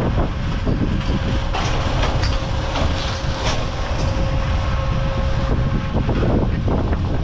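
Drag lift station machinery running: a steady low rumble with a held whine that stops about five and a half seconds in, and several sharp metallic clacks in the middle.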